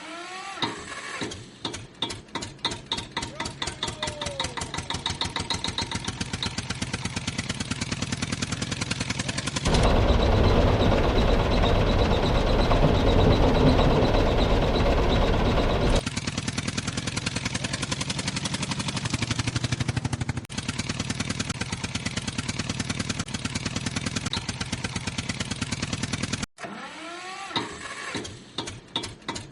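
Engine-like chugging at a fast, even beat, the running sound of a mini DIY tractor. There is a louder, rougher stretch in the middle, and short rising-and-falling glides near the start and near the end.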